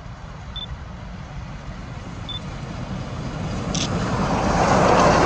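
Double-headed R class Hudson steam locomotives approaching, their rumble growing steadily louder from about three seconds in. Two short high beeps are heard in the first half.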